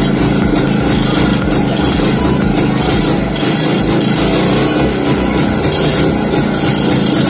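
Yezdi/Jawa two-stroke single-cylinder motorcycle engine running steadily on its newly fitted CDI ignition coil, with the magneto cover off.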